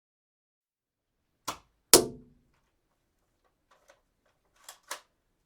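Gun sound effect: two sharp shots about half a second apart, the second louder with a short ring, then a few faint clicks and two quieter cracks close together near the end.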